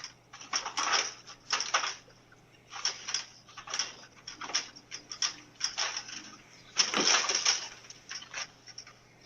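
Irregular rustling and clattering, as of things being handled and moved, heard through a doorbell camera's microphone over a steady low hum. The loudest stretch comes about seven seconds in.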